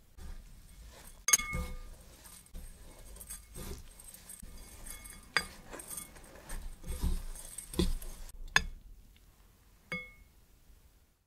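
Metal forks clinking against a glass mixing bowl, with quieter scraping between the clinks as a chocolate-iced cake cube is turned in shredded coconut. There are several sharp clinks, the loudest about a second in and at about eight and a half seconds, and some leave a short ring of the glass.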